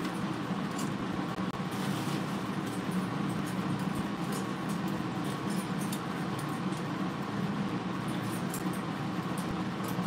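Steady low hum of room background noise, with faint scattered clicks.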